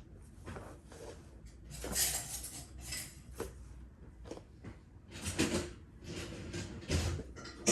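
Clothing rustling and soft thumps of a person doing a full prostration bow, going down to the floor and rising, with a few separate rustles over a low hum.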